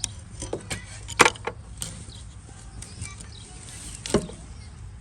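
Sharp metal clicks and knocks, several close together in the first two seconds and one more about four seconds in, as the 1978 Ford Mustang II's brake pedal is worked off its pivot after its pin is popped out.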